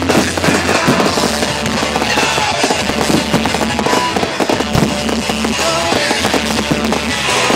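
Fireworks display: aerial shells bursting in rapid, overlapping bangs and crackles, with loud music playing at the same time.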